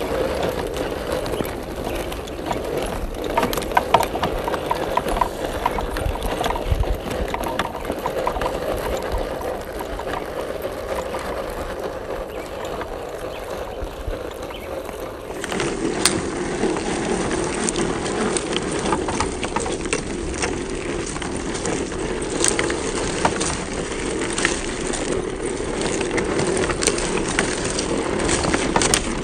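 Electric RC scale crawler truck driving over dry, cracked dirt. Its motor and gears give a steady whine while the tyres crunch and click over clods and stones, and the whine drops slightly in pitch about halfway through.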